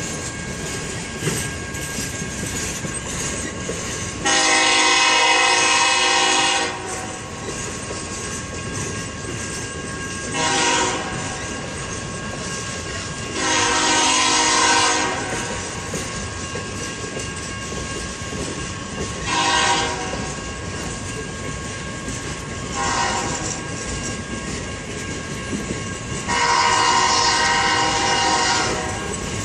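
A freight locomotive's multi-chime horn sounds six blasts, three long and three short, over the steady rolling rumble and clickety-clack of a long train of Triple Crown RoadRailer trailers on their rail bogies passing by.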